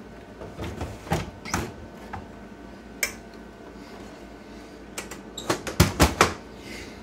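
Hard plastic-and-metal clunks and knocks as an IGT S+ slot machine's coin hopper is handled and seated in the cabinet. Near the end comes a quick run of louder bangs as the machine's door is shut.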